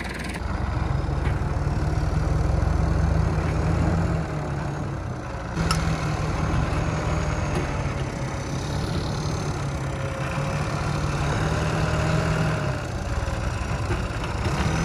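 Diesel engines of two farm tractors working under load during a tow recovery, one pulling a stuck Massey Ferguson tractor free. The engine note is steady with a faint wavering whine above it, dips briefly about five and a half seconds in, then picks up again.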